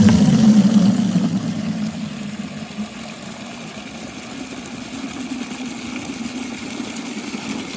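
An engine running steadily, loudest in the first second or so and then settling to a lower, even level.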